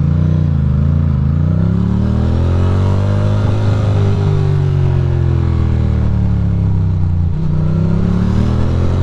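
Ducati Monster's twin-cylinder engine running under way, its revs rising over the first few seconds, easing down through the middle, then dipping briefly and climbing again near the end.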